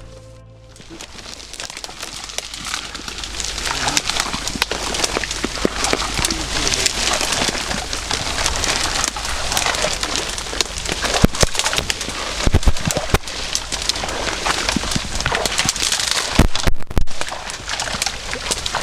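Dry reed stalks rustling, cracking and snapping as people push their way through a dense reed bed. The sound fades in and grows louder over the first few seconds.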